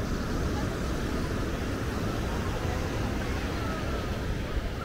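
Steady low rumble of outdoor beach-front ambience with faint distant voices.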